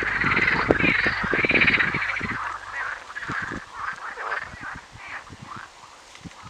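Frogs calling in a dense croaking chorus, loudest in the first couple of seconds, then thinning to scattered, fainter calls.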